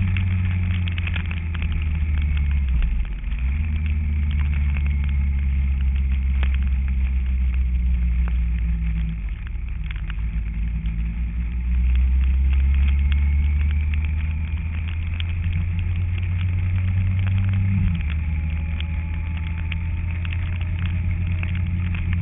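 Kawasaki ZZR1400 motorcycle's inline-four engine running steadily, its note dipping and rising a few times, around three seconds, twelve seconds and eighteen seconds in.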